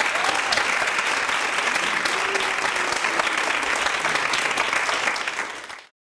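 Audience applauding steadily, fading away and cutting off to silence near the end.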